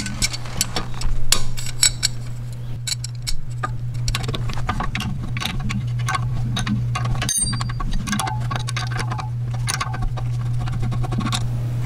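Steel wrench ticking and clinking against a brake caliper's 13 mm guide bolt as the bolt is worked loose, in a run of irregular small metal clicks, busiest in the first few seconds, over a steady low hum.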